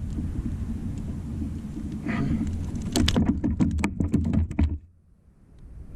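Steady low rumble with a quick run of sharp clicks and knocks about three seconds in; near the end it drops suddenly almost to silence for about a second.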